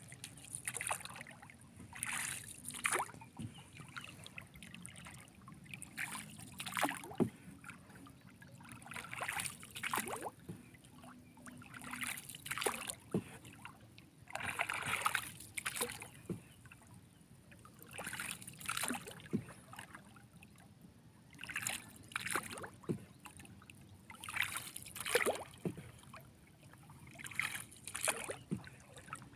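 Water sloshing and splashing in repeated irregular bursts, one every one to three seconds, around a small boat at sea.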